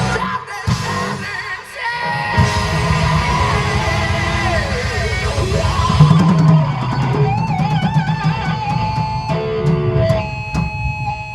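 Live rock band playing loudly: electric guitar over bass and drums, with long wavering held notes in the second half.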